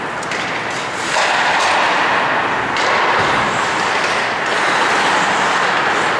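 Ice hockey play on a rink: a steady rushing noise of skates on ice with a few sharp clacks of sticks and puck.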